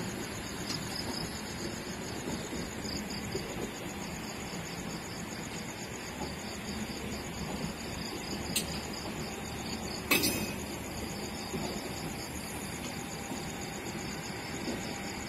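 Insects chirping in a steady, fast-pulsing high trill, over a low background hum. A sharp click past the halfway point and a louder knock about a second and a half later.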